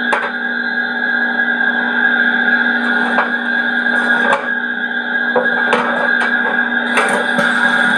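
Piko BR 50 garden-railway model steam locomotive running, with a steady whine and hum and irregular sharp clicks throughout.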